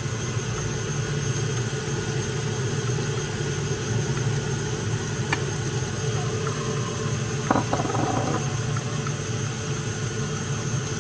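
Electric mixer running steadily, beating soft butter, vanilla and sugar for a cake batter. A sharp click comes about five seconds in, and a short clatter about two seconds later.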